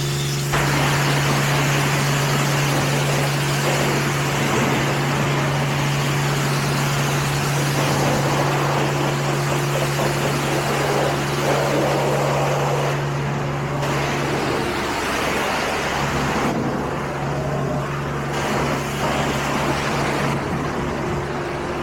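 Car wash equipment running over the car: a dense rushing hiss of spray or blown air starts suddenly about half a second in and thins out in steps later on, over a steady low hum that drops out briefly past the middle.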